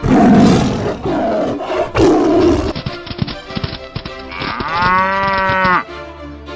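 Cartoon animal sound effects: lions roaring at the start and again about two seconds in, then a long cow moo that rises and falls in pitch near the end, over background music.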